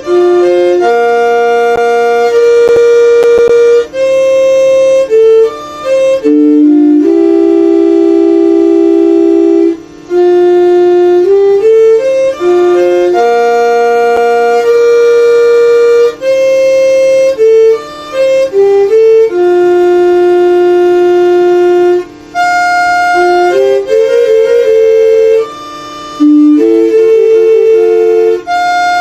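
Electronic chime melody from a municipal FM notification broadcast: one synthesized, organ-like voice plays a simple tune, with short rising runs of notes leading into long held notes and brief breaks between phrases.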